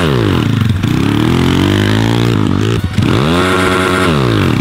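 MRF 140 TTR pit bike's small four-stroke single-cylinder engine revved up and eased off three times as it is ridden. Each time the pitch climbs, holds briefly, then falls away.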